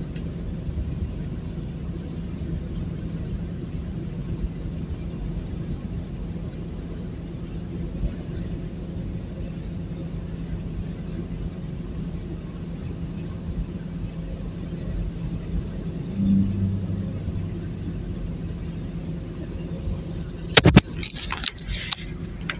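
Steady drone of a truck cab cruising at highway speed, engine and road noise with a low hum. Near the end comes a short burst of sharp clicks and clatter, the loudest part.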